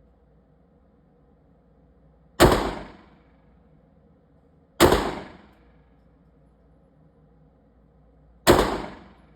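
Three single pistol shots, slow and unevenly spaced, each cracking sharply and dying away in a short echo.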